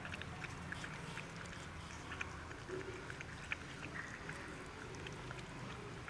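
Puppies eating from a plastic box: a scatter of small, irregular clicks and smacks from their mouths and teeth against the food and the plastic.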